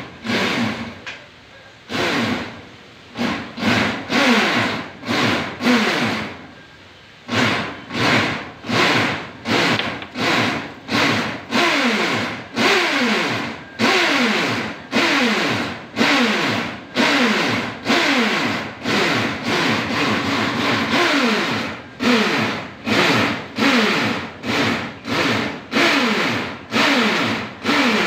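Handheld power drill run in short trigger bursts, about one or two a second, its pitch dropping within each burst as the motor loads, driving self-drilling tek screws into corrugated roofing.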